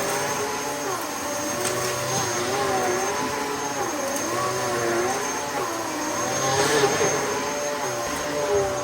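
Dyson DC14 upright vacuum cleaner running, with a steady motor whine and rushing air. Its pitch wavers up and down over and over, about once a second.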